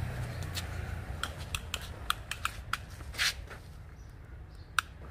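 A run of short, sharp, irregular clicks, about ten in two seconds, then a brief rustle and one more click near the end: a tape measure being handled while a tree trunk is measured.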